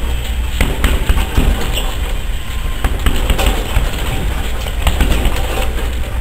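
Gloved punches landing on a hanging heavy bag: an irregular run of sharp thuds in quick combinations, over a steady low rumble.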